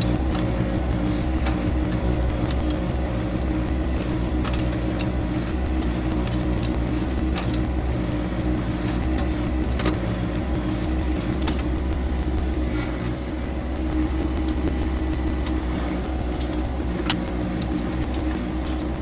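John Deere 2025R compact tractor's three-cylinder diesel engine running steadily while its backhoe digs a drainage ditch in hard, dry ground. Scattered short clicks and knocks sound over the engine.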